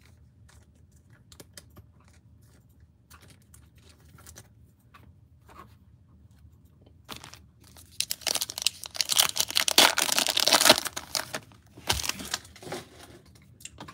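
Plastic wrapper of a Donruss Optic football card pack being torn open and crinkled. A few faint clicks come first, then about eight seconds in a loud crackling tear that lasts about three seconds, with a short rustle near the end.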